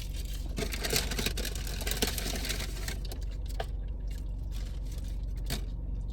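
Close-up eating sounds: wet chewing of food with mouth clicks, busiest in the first half and thinning to a few single clicks later, over a steady low hum.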